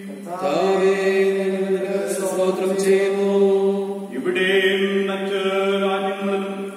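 Slow liturgical chant: long held sung notes over a steady low drone, with a short break in the phrase about four seconds in.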